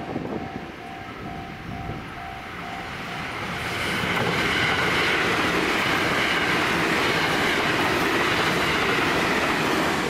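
Japanese level-crossing bell ringing its repeating "kan-kan" about twice a second. From about four seconds in, an electric commuter train passes over the crossing and its running noise grows loud and steady, covering the bell.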